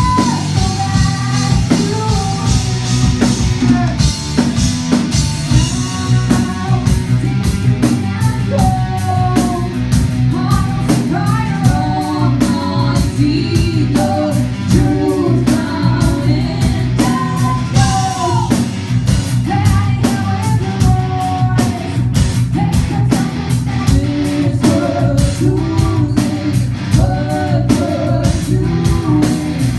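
Rock band playing live and loud: a woman sings the lead over electric guitar, bass and drum kit, with a steady beat of drum and cymbal hits.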